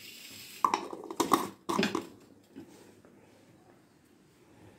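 Plastic screw cap being twisted onto a glass jar, three short scraping clicks in the first two seconds, then quiet handling.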